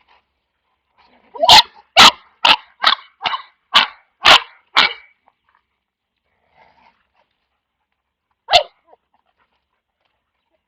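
A dog barking: a quick run of about eight loud barks over some three seconds, then a single bark about four seconds later.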